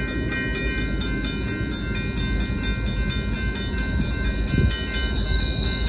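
Railroad grade crossing bells ringing with rapid, evenly spaced strokes, over the steady low rumble of an approaching freight train.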